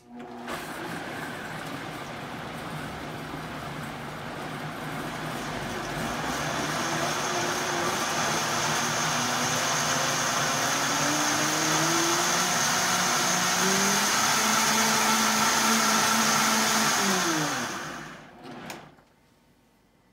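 High-powered countertop blender blending soaked oats and water into oat milk. The motor starts right away, climbs in pitch through the middle as the speed dial is turned up, holds at top speed, then winds down and stops about 18 seconds in.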